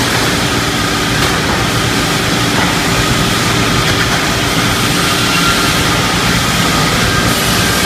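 Pallet-board ripping saw machine running: loud, steady machine noise with a constant hum.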